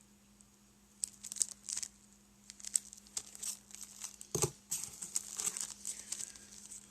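Small plastic parts bags crinkling in irregular rustles as they are handled, with a single soft knock about four and a half seconds in.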